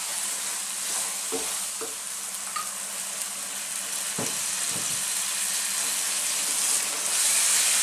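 Lentils, diced carrots and berbere sizzling in a frying pan while a wooden spoon stirs and scrapes through them, with a few short knocks of the spoon against the pan. The sizzle grows a little louder near the end.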